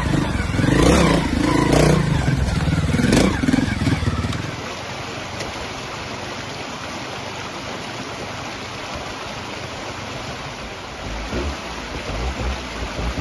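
Trials motorcycle engine revving up and down in bursts as the bike climbs a rocky stream bed. After about four and a half seconds it cuts off suddenly, leaving a steady rushing noise, and an engine starts to build again near the end.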